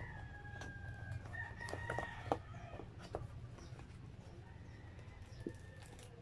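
Paper and cardboard food packaging being handled and opened, with crinkles and sharp clicks; the loudest click comes a little past two seconds in. Behind it, a drawn-out pitched animal call over the first two seconds, fainter again near the end.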